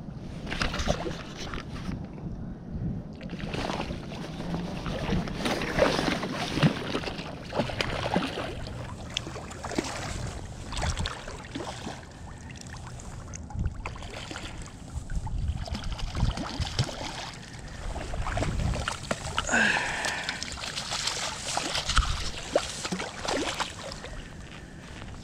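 Hooked steelhead splashing and thrashing at the surface as it is played to a landing net, in irregular bursts of splashing. Wind rumbles on the microphone underneath.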